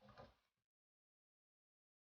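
A cat gives one short, faint mew in the first half second, and then the sound cuts off to dead silence.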